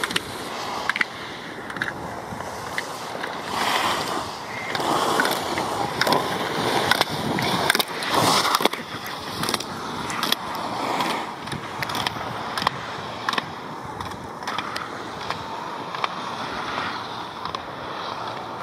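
Slalom skis carving on firm groomed snow: a steady scraping hiss from the edges that swells with each turn, with scattered sharp clacks.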